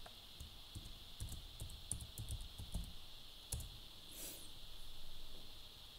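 Keys tapped on a Toshiba laptop keyboard as a sudo password is typed: a quick run of light clicks lasting about three seconds, ending in one firmer key press about three and a half seconds in. A short soft hiss follows about a second later.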